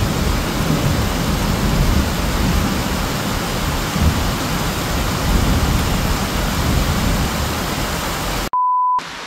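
Heavy rain pouring steadily in a thunderstorm, with a low rumble of thunder fading over the first couple of seconds. Near the end the rain cuts off suddenly and one steady high beep sounds for about half a second.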